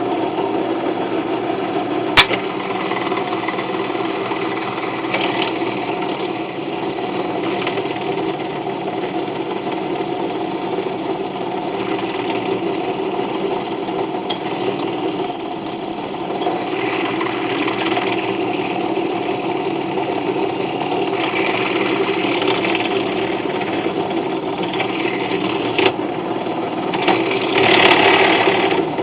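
Power tool running with a steady hum while working a brass piece. A high squeal of metal against the tool comes and goes from about 6 s to about 21 s in. There is a single sharp click about 2 s in.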